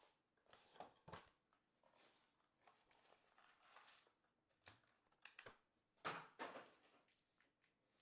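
Faint handling of a Panini Luminance football card box and its packs: scattered soft rustles, taps and scrapes of cardboard and wrappers, the loudest about six seconds in, over near silence.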